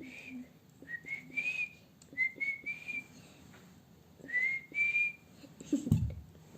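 Short whistled notes, each rising slightly, in four small groups of two or three. One low thump comes near the end.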